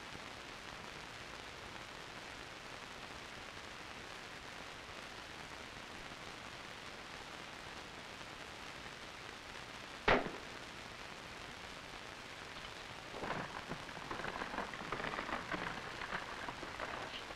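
Steady hiss, then a single M16 rifle shot about ten seconds in, the loudest sound here. Near the end come a few seconds of irregular crackling and rustling.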